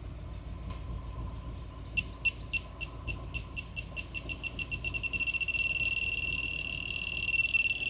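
AGT-2000 portable carbon monoxide detector's alarm going off at a truck's exhaust: high beeps start about two seconds in, quicken, and merge into a continuous tone. The truck's engine runs underneath.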